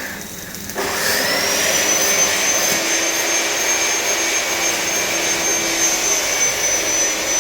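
Electric angle grinder switching on about a second in: its whine rises as the motor spins up, then it runs steadily at full speed.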